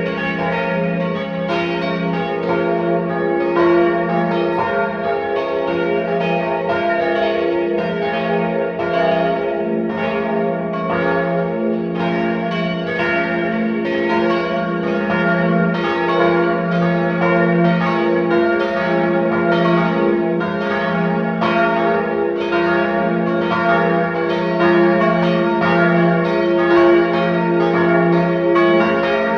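Church bells ringing in a continuous peal, strikes overlapping without pause, each ringing on.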